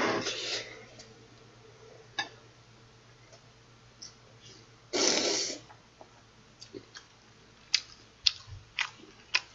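Spicy cold mixed noodles slurped up through the lips twice, about five seconds apart, each a short wet swish. Near the end comes a run of short sharp wet clicks of close-up chewing.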